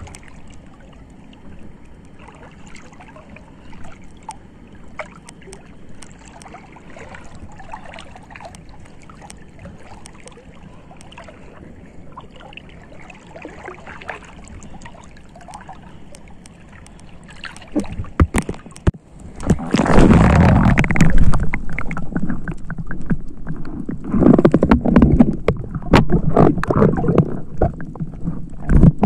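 Seawater sloshing and gurgling around a spearfisher in the sea, with small clicks and crackles while faint. From about 18 seconds in, it turns much louder in several spells of splashing.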